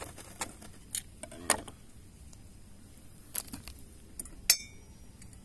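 Kitchen knife cutting a lemon into smaller pieces, with a few scattered knocks and taps. About four and a half seconds in there is a sharp clink that rings briefly, the loudest sound.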